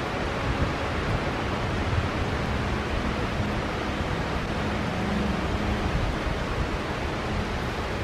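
Wind: a steady rushing noise with low, uneven buffeting on the microphone.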